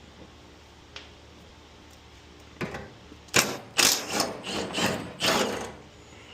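Cordless power tool backing out the 12 mm engine-cover bolts on a Subaru Sambar truck. It runs in several short loud bursts over about three seconds, starting a little over two seconds in.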